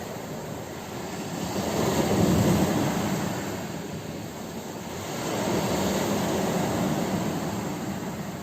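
Ocean waves breaking and washing up on a shore: a continuous rush of surf that swells twice, once about two seconds in and again around six seconds.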